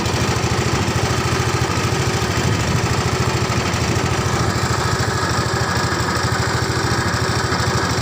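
A small engine running steadily at a constant speed, with a fast, even pulse.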